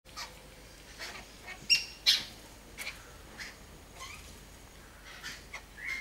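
Birds calling with short chirps and squawks at irregular intervals, the two loudest a little before and after two seconds in.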